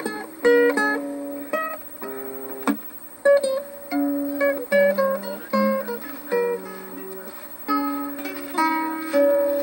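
An acoustic plucked string instrument, guitar or ukulele, strummed in chords with a new chord struck about every half second to second.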